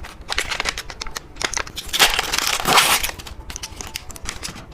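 Plastic candy wrapper crinkling and tearing as a candy is unwrapped, with scattered crackles and a dense, louder rustle about two seconds in.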